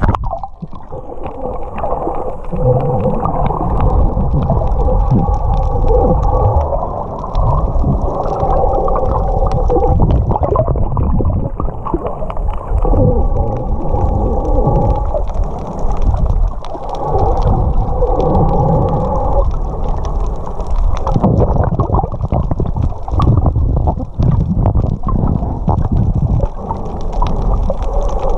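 Muffled water sloshing and gurgling heard underwater, with a steady crackle and low humming tones that come and go.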